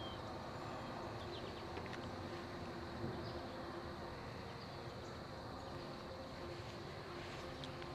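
Steady insect buzzing of an open field, with a high continuous drone and a few brief, faint high chirps near the start.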